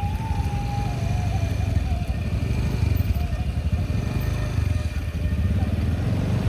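Motorcycle engine running steadily at low revs while the bike is ridden on a wet, slippery road, with a dense low rumble throughout.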